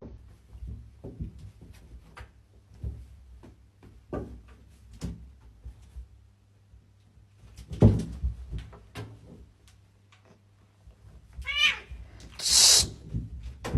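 Domestic cat meowing once, about two-thirds of the way through, amid scattered knocks and taps, with a loud thump a little past halfway and a short hissing burst right after the meow.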